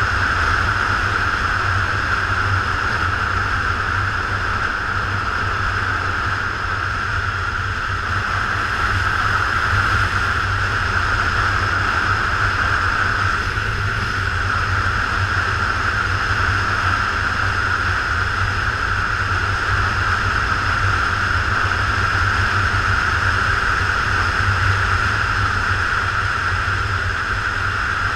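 Motorcycle cruising at steady speed: wind rushing over the bike-mounted camera's microphone, a low rumble with the engine's drone running underneath.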